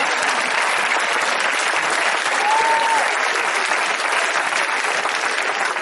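Live theatre audience applauding steadily, with a brief held tone rising above the clapping about halfway through.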